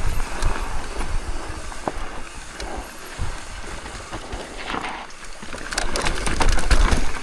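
Mountain bike rolling down a loose, rutted dirt trail: tyres rumbling and crunching over the dirt, with wind buffeting the microphone. Sharp rattles and clicks from the bike come more often in the second half.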